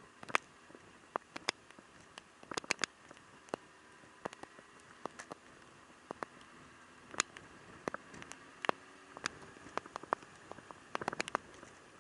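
Raindrops tapping close to the microphone: irregular sharp ticks, a few a second and bunched in small clusters, over a faint steady hiss.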